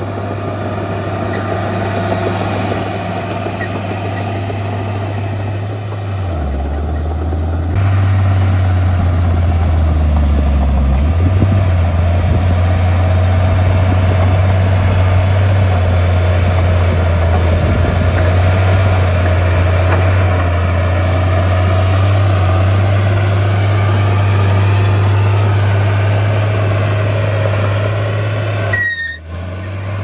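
Komatsu D51P crawler bulldozer's diesel engine running steadily under load as it pushes earth. The engine note dips about six seconds in and runs louder from about eight seconds, with a brief break near the end.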